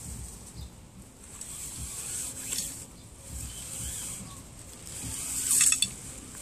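Tent fabric rustling as it is handled and pulled at a corner, with a louder rustle about five and a half seconds in. A steady high-pitched insect drone runs underneath.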